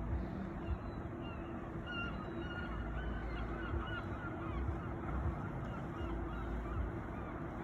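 A flock of seagulls calling, many short overlapping cries, over a steady low hum and rumble.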